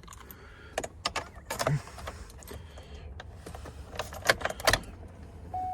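A bunch of car keys jangling and clicking as the key is handled at the ignition, in a series of sharp rattles, the loudest about four to five seconds in. A steady electronic tone starts near the end.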